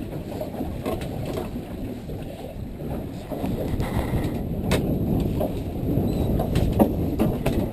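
Wind and boat noise on the microphone at sea: a low, uneven rumble, with a few sharp knocks in the second half.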